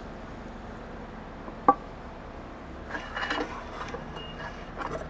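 A single sharp click, then a run of light clinks and rattles from about the middle onward, as agitator parts are handled and fitted into an air-cart meter housing.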